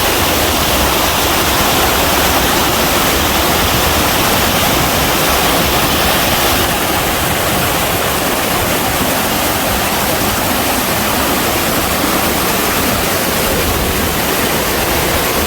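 Loud, steady rush of water cascading down a rocky mountain stream at a waterfall. The hiss eases slightly a little under halfway through.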